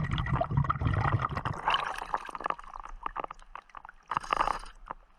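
A diver breathes underwater through a regulator fed by a Blu3 Nemo surface air system. Exhaled bubbles gurgle for about the first second, a short hiss of an inhaled breath comes about four seconds in, and small clicks and knocks sound throughout.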